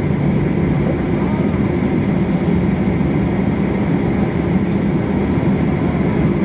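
Steady cabin noise of a Boeing 737-800 taxiing, its CFM56-7B turbofans running at idle, heard from inside the cabin as a constant low hum and rush.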